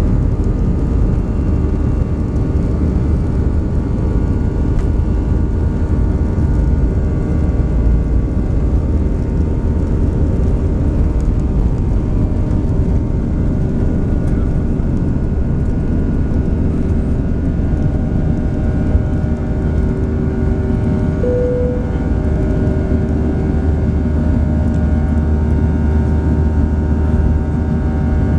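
Cabin sound of an Airbus A320-214's CFM56 turbofan engines at takeoff thrust through the takeoff roll and climb-out: a loud, steady noise with several steady whining tones over a heavy rumble. The deepest rumble drops away about three-quarters through, as the wheels leave the runway.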